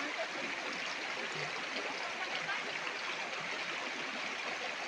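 Shallow river water rushing steadily, an even unbroken wash of flowing water.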